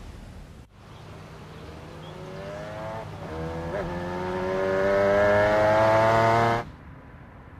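Motorcycle engine coming closer, rising in pitch and growing louder over a few seconds, then cutting off suddenly near the end.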